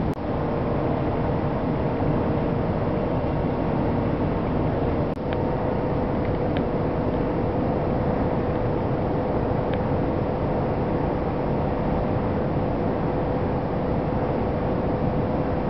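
Cabin running noise of an electric regional train travelling at speed: a steady rumble of wheels on the track with a constant mid-pitched hum over it.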